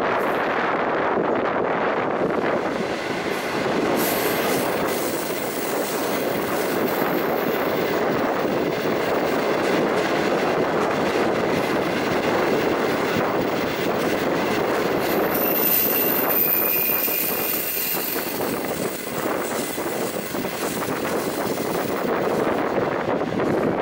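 Passenger train running through a tunnel, heard from an open carriage window: a steady, dense roar of wheels on rail that closes in as the carriage enters the tunnel. A thin, high metallic squeal from the running gear comes in about four seconds in and again, stronger, around fifteen to eighteen seconds in. Near the end the roar opens out as the train leaves the tunnel.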